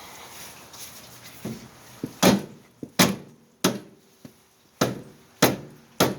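Repeated hammer blows on the seized outer tie rod end of a Corolla's steering knuckle, about six sharp strikes at a steady pace starting about two seconds in, each with a short ring: trying to knock the stuck tie rod loose.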